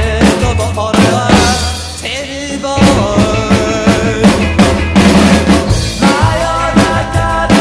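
Acoustic drum kit played in a rock beat, mostly snare and bass drum hits with cymbals, over the original recording of a 1981 Japanese rockabilly song with its bass and guitar. The drums ease off briefly about two seconds in, then pick up again.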